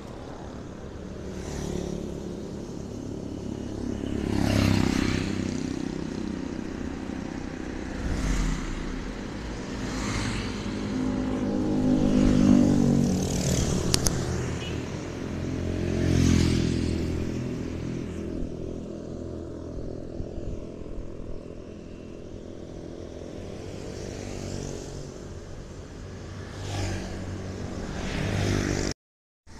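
Road traffic: vehicle engines passing one after another, each swelling and fading, with the sound cutting out briefly near the end.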